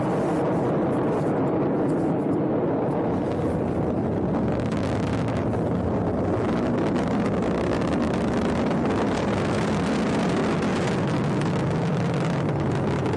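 Atlas V rocket's RD-180 first-stage engine and two solid rocket boosters burning during ascent: a steady, deep, unbroken rumble.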